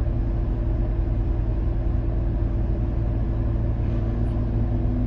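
A vehicle's engine idling steadily, an even low hum heard from inside the vehicle.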